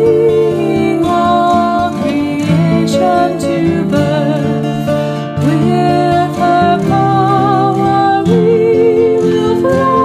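A women's vocal trio sings a slow hymn with violin accompaniment and a steady plucked-string rhythm. The held notes carry vibrato, and the sung lines are 'bringing all creation to birth, with Her power, we will flower'.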